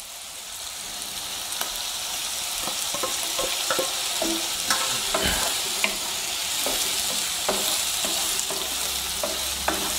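Chopped vegetables sizzling in hot oil in a pan, the sizzle swelling over the first couple of seconds as a fresh batch of chopped green chilli goes in. A wooden spatula stirs them, with scattered scrapes and knocks against the pan.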